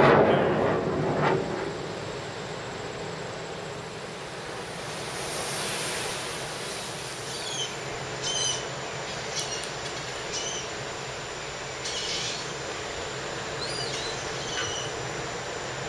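Steady outdoor background noise over a beachfront boardwalk. A loud rumble fades away in the first second or two, and several short, high chirps come from about halfway to near the end.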